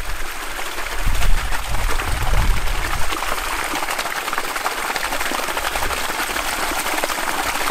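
Water pouring steadily from the outlet of a 60 mm plastic siphon pipe that draws from a river, with a low rumble between about one and three seconds in.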